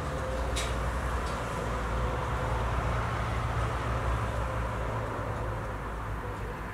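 Steady low rumble of distant road traffic, with a couple of faint clicks about half a second and a second in.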